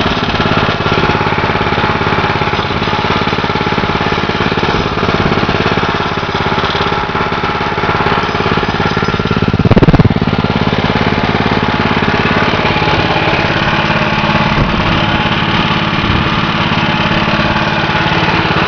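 PowerFist 196cc single-cylinder four-stroke engine (a Honda clone) idling steadily on a go-kart frame. A loud thump about halfway through.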